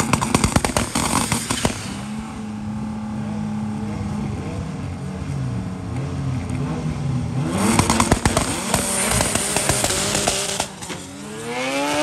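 Sport-compact drag race cars' engines. First a burst of sharp crackling pops, then a few seconds of steady engine running that rises and falls a little. After that comes a louder stretch of engine noise and pops, and near the end an engine climbs in pitch as it revs up.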